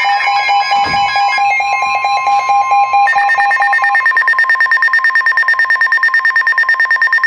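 Electronic emergency alert tones signalling a severe thunderstorm warning. A run of stepping, pulsed beeps over a steady tone changes about three seconds in to a fast pulsing two-tone beep.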